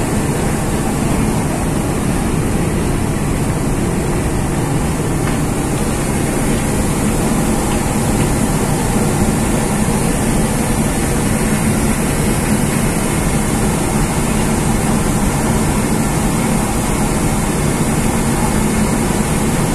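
Ro-ro car ferry's engines running with a steady drone and a constant low hum, heard from the open deck while the ship moves slowly through the harbour.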